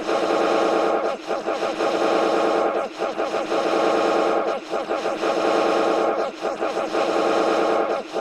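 A buzzing alarm sound that repeats about every 1.7 seconds, with a short break between repeats.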